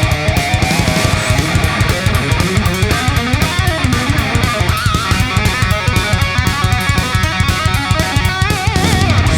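Loud rock music with electric guitar and a fast, steady drum beat.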